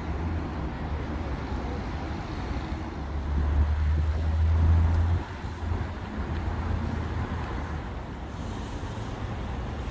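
Steady low rumble of road traffic, swelling for a couple of seconds around the middle and then dropping off suddenly.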